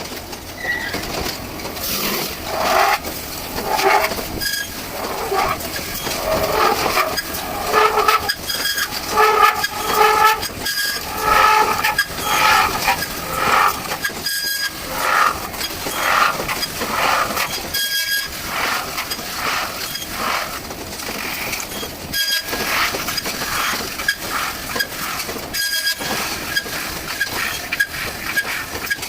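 CNC metal spinning machine running as its roller forms a sheet-metal lamp shade on the spinning mandrel. Steady mechanical noise with shifting tones, breaking off briefly a few times.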